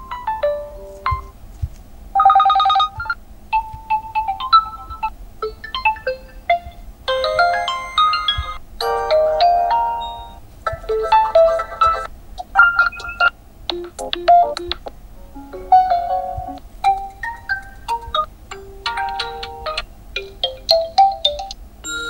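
Realme GT2 Pro system ringtones previewed one after another through the phone's speaker. Each short melodic clip is cut off after a second or two as the next one starts.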